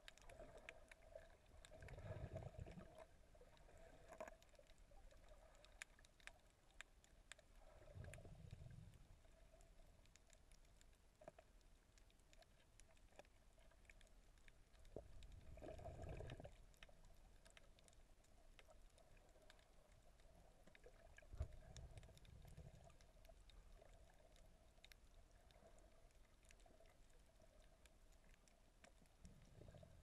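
Near silence underwater: faint muffled water swishes about every six seconds, over a faint steady hum and scattered small clicks.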